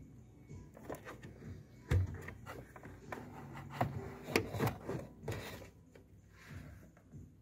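Rubbing, clicks and knocks of a hand working the round dust cover off the back of a car headlight, with one dull thump about two seconds in.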